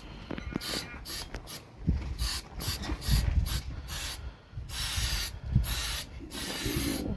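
Aerosol spray-paint can spraying in repeated short hissing bursts, with handling noise between them.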